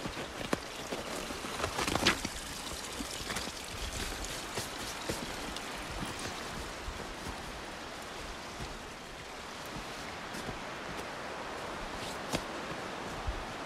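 Small mountain stream running over rocks, a steady rushing of water, with a few short clicks on top, the loudest about two seconds in and another near the end.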